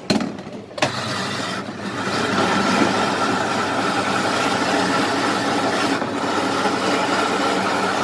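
Two sharp knocks near the start, then an electric shaved-ice machine starting and running steadily as its blade shaves a block of ice into the bowl below. The running gets louder about two seconds in and then holds even.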